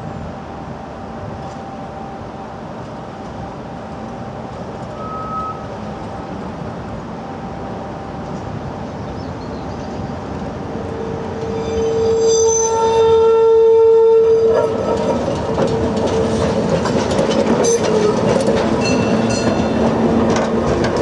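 Ebbelwei-Express historic tram rolling around a tight turning loop: its running noise builds, a steady whine holds for about three seconds midway, then the wheels clatter and rattle over the track as it passes close.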